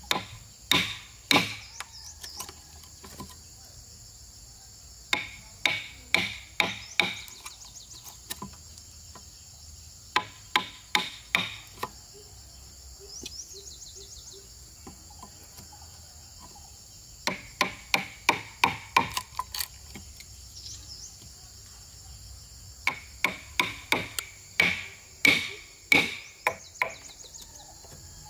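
Hammer blows on wood, coming in quick bursts of about five to eight strikes with pauses of a few seconds between bursts, typical of nailing timber. A steady high insect chorus carries on underneath.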